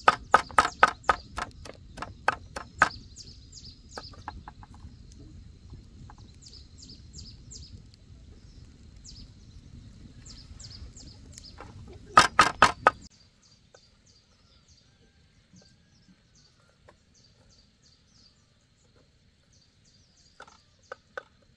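Sharp chopping strokes, about four a second for the first three seconds, then another quick run of strokes about twelve seconds in. Faint high chirps and ticks sound throughout.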